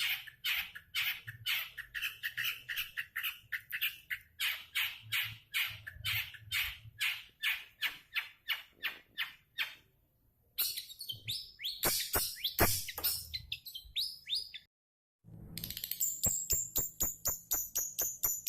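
Long-tailed shrike (cendet) calling: a long run of harsh, repeated notes about three a second. After a short break comes a more varied stretch of calls, then, past a brief cut, faster chirps mixed with high whistles.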